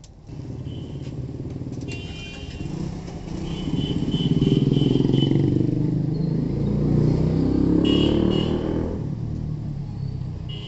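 A motor vehicle's engine running close by, growing louder about three seconds in and fading near the end, with a short run of high beeps over it.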